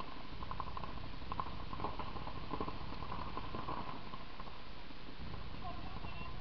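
Paintball markers firing in several quick strings of pops, heard from a distance, over a steady low rumble.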